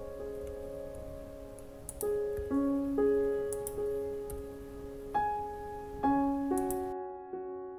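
Soft background piano music: slow single notes and chords that strike, ring out and fade, a new one every half second to a second.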